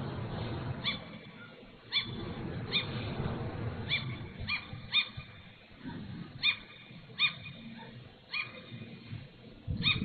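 A gull calling over and over, short sharp yelping calls about one a second, some in quick pairs, over a low steady rumble.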